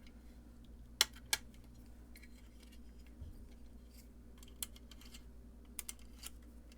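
Small metal hardware and tools being handled while a pedal kit is assembled: two sharp clicks about a second in, then a few lighter ticks, over a steady low hum.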